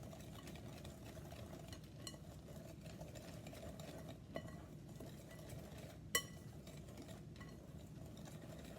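A whisk stirring dry brownie ingredients in a mixing bowl: a soft, steady scraping with light clinks of the whisk against the bowl, and one sharper clink about six seconds in.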